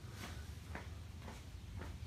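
Faint footsteps, about two a second, over a low steady hum.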